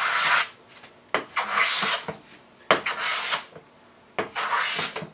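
Hand plane taking shavings off a cedar board: about four strokes, one every second and a half, each a short hiss of the blade shearing wood.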